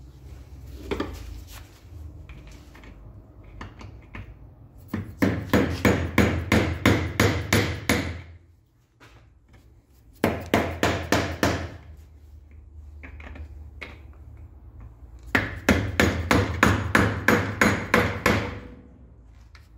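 Hammer blows on a seized metal fitting of an air compressor, struck to make it turn. The blows come in three quick runs of about three strikes a second: two long runs and a short one between them. The fitting stays stuck fast, as if welded.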